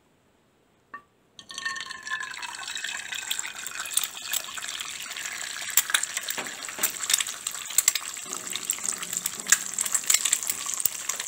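An egg poured into hot oil in a frying pan, frying: a steady sizzle with frequent sharp crackles of spitting oil, setting in about a second and a half in.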